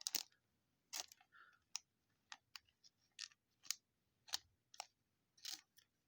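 Trading cards being handled and flipped one past another: about a dozen faint, irregular clicks and flicks of card stock.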